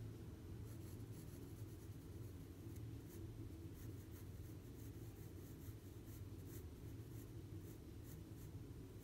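Staedtler graphite pencil scratching on sketchbook paper in many short, quick shading strokes, with a low steady hum underneath.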